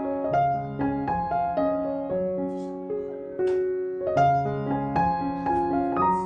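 Background music: a gentle piano melody with soft chords, notes changing about every half second.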